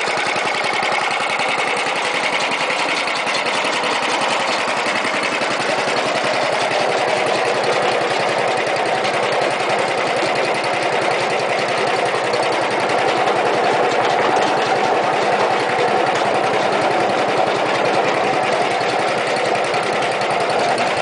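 Gilson 8 HP gear-drive snowblower's single-cylinder small engine running steadily with a rapid, even firing rhythm, getting a little louder from about six seconds in.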